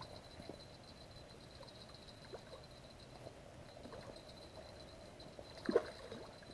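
Faint splashing and lapping of river water at the bank, with one louder splash about five and a half seconds in.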